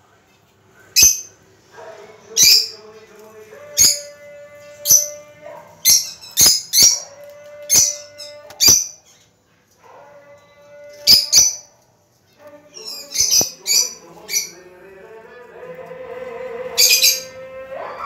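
Caged lovebirds giving short, loud, shrill calls, about one a second and sometimes two or three in quick succession, with a short lull about two-thirds of the way through. Background music plays with held notes underneath.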